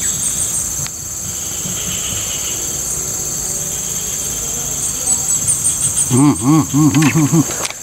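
Steady high-pitched drone of insects. Near the end it is broken by a loud run of about five quick pitched calls, each rising and falling.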